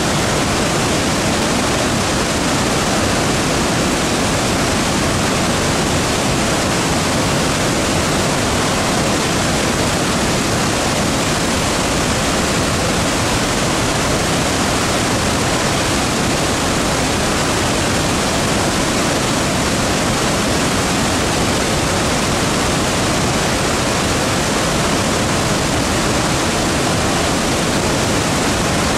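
Victoria Falls, the Zambezi River plunging over the cliff edge in full flood: a loud, steady, unbroken rush of falling water.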